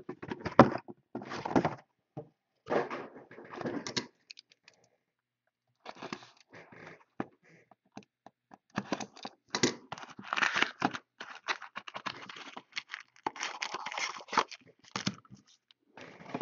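Trading card boxes being handled and unwrapped by hand: plastic wrap crinkling and tearing, with cardboard scraping and knocking against the table. The sounds come in irregular bursts, with a short pause about five seconds in.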